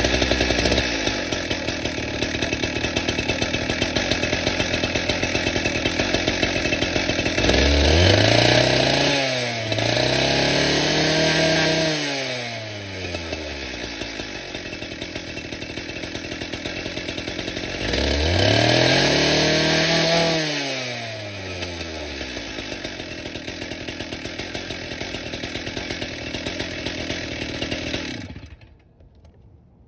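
Stihl TS 410 cut-off saw's two-stroke engine idling after a tune-up. It is revved up twice, the pitch climbing and sinking back to idle each time, and is shut off near the end.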